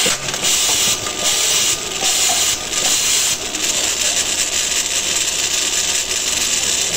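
Automatic drilling and tapping machine at work, its spindle cutting into the workpiece under coolant nozzles. A loud steady hiss drops out briefly four or five times in the first three and a half seconds, then runs on unbroken.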